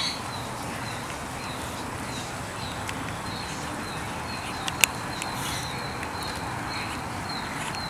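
Steady hiss of rain falling on a wet yard and standing floodwater, with a high, short chirp repeating about three times a second. One sharp click about five seconds in.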